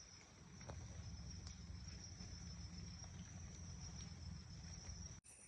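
Faint, steady, high-pitched chirring of crickets, over a low rumble. The sound drops out for an instant near the end.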